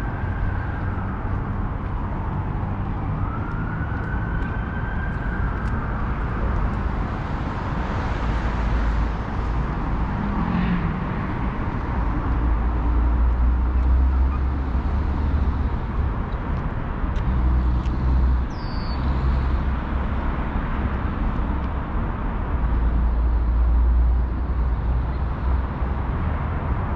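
Steady traffic noise from the elevated Gardiner Expressway: a continuous low rumble of passing vehicles that swells and eases, with faint gliding whines of passing vehicles in the first few seconds.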